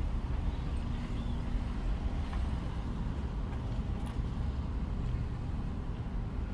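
A car being driven, with a steady low rumble of engine and road noise.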